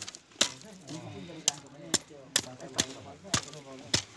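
A long steel blade chopping repeatedly into a cut coffee stem, splitting it open. About seven sharp chops come at uneven intervals, roughly two a second.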